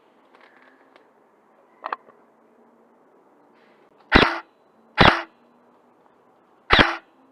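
Airsoft electric rifle (AEG), likely a G&G ARP 556, firing single shots close by: three loud, sharp shots from about four seconds in, the first two under a second apart and the third nearly two seconds later, each followed by a short whir of the gearbox. A fainter click comes about two seconds in.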